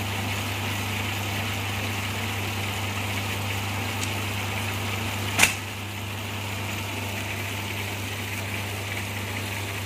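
Motor of a bamboo-splitting satay-skewer machine running steadily with no load: a constant low hum with a hiss over it. About five and a half seconds in, one sharp clack as bamboo strips are handled.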